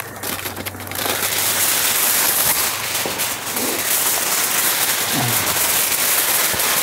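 Aluminium foil being handled and crumpled, a dense, steady crinkling crackle that starts about a second in.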